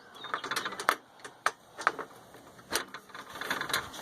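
Spring clamps on a table saw's folding steel stand being worked and latched, giving several sharp metallic clicks with light rattling in between.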